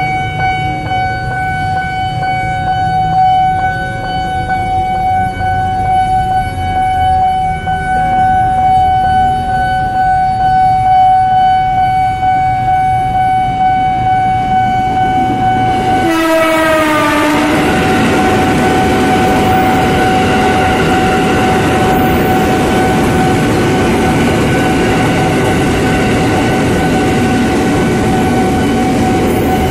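Railway level-crossing warning alarm ringing with a steady tone. About halfway through, a KRL Commuter Line electric train arrives: a short horn-like call drops in pitch as it passes, and the steady noise of the train running past then fills the rest under the continuing alarm.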